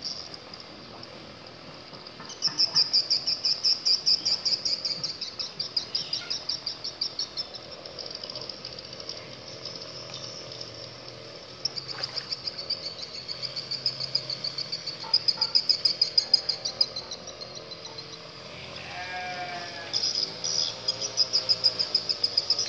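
Insects calling at the waterside: a high, rapidly pulsing buzz in bouts of several seconds, starting and stopping again and again, with a short lower wavering call near the end.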